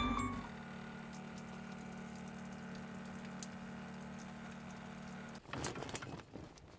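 Music fading out, then the faint steady hum of a camp shower's small electric water pump with the shower spraying. About five and a half seconds in it gives way to irregular rustling of heavy tent fabric being handled.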